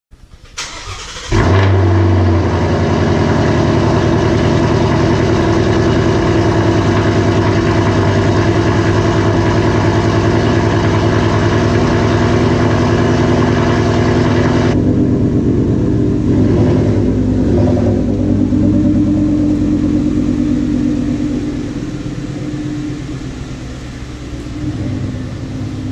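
Ford Mustang GT's 5.0-litre V8 starting and idling through an X-pipe with the resonators and mufflers deleted but the catalytic converters kept: a short crank, the engine catches about a second and a half in, then idles steadily. The sound turns duller about fifteen seconds in and eases in level near the end.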